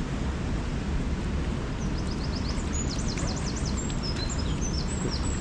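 Steady rush of a woodland waterfall, with a small songbird singing a quick run of high, falling notes and short whistles from about two seconds in.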